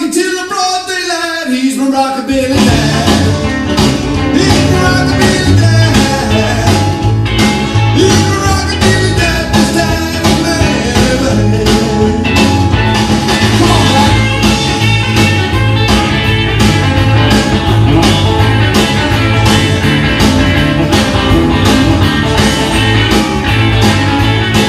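Rock and roll record playing from a DJ's decks. For about the first two seconds the sound is thin with no bass, then the full band comes in with a steady beat.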